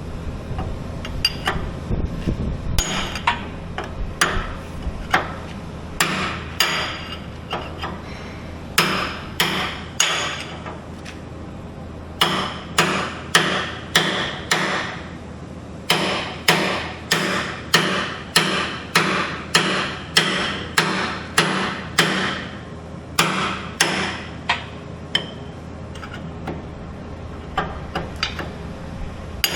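Hammer blows on the axle pin and bushing of a Skyjack scissor lift being replaced: a few scattered strikes, then runs of steady blows at about two a second with short pauses, thinning out near the end.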